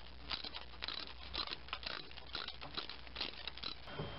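Hand ratchet clicking in short, irregular runs of sharp clicks as a lower intake manifold bolt on a 3.4L GM V6 is turned loose.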